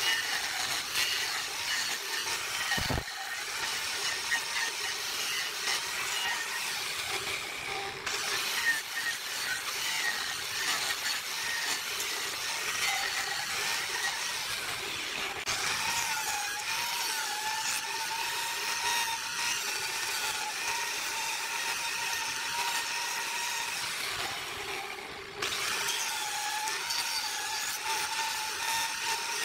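Handheld electric angle grinder running at full speed, its disc grinding into carved wood: a steady motor whine over a continuous rasp, the whine wavering a little as the disc bites. About three quarters through the sound briefly drops away and comes straight back.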